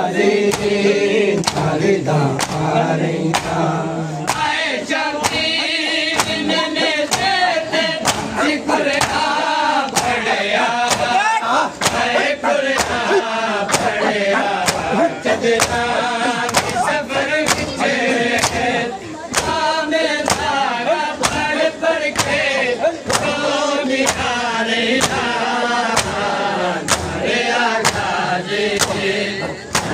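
Men chanting a mourning noha together while beating their bare chests in matam; the palm strikes land as sharp slaps in a steady beat of about one a second under the chant.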